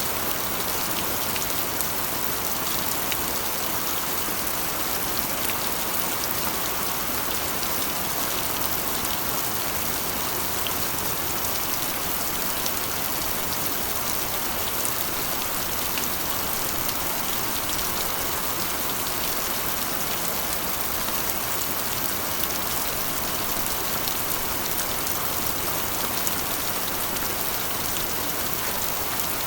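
Rain falling steadily on a corrugated iron roof: a dense, even patter with faint individual drop hits scattered through it.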